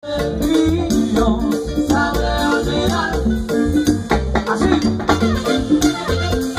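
Live salsa band playing, with trumpet over a strong bass line and shaken percussion keeping the beat.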